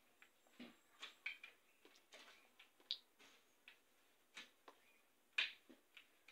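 Faint, irregular scrapes and knocks of a hoe blade chopping into dry soil, about one or two strikes a second, the loudest about five and a half seconds in.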